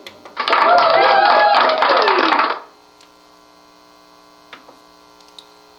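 A short canned crowd sound effect from a mixer's effects unit, about two seconds long and cut off abruptly. A steady electrical hum follows, with a few faint clicks.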